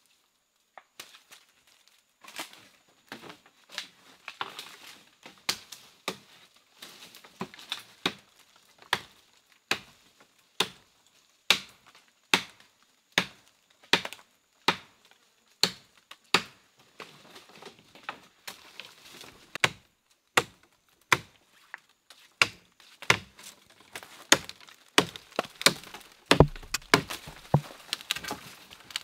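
Wood being chopped with a blade: a long, steady series of sharp chopping strikes, a little faster than one a second, coming quicker near the end.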